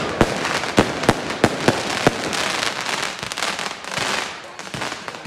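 Fireworks display: a quick run of sharp bangs in the first two seconds or so, giving way to a dense crackle with only occasional bangs.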